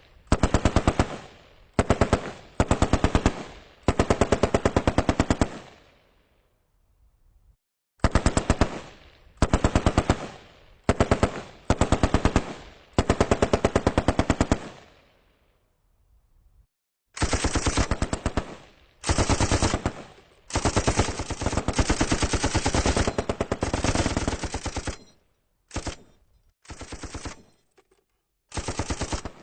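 M60 machine gun firing in repeated bursts of automatic fire, some short and some about two seconds long, with brief pauses between groups of bursts. The sound dies away after each burst.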